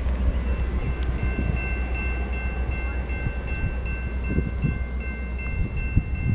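Loaded coal train running by out of view: a steady low rumble with irregular knocks of the wheels and cars. A faint high-pitched ringing tone comes in about half a second in.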